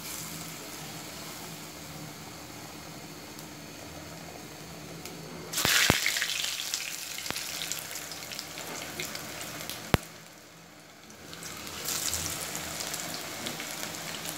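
Batter-coated aubergine slices deep-frying in hot oil in a kadai, a steady sizzle. It turns sharply louder about five and a half seconds in as another slice goes into the oil, falls off after a single click about ten seconds in, then builds again as a third slice is added.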